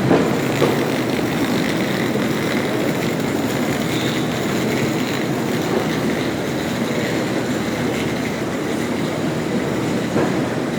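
Airport terminal background noise: a steady rumble and hum with a few faint knocks, one near the start and one near the end.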